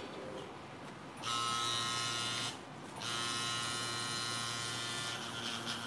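Rotary tattoo pen's motor running with a steady whine. It starts about a second in, stops briefly about two and a half seconds in, then runs again. Its tone shifts near the end.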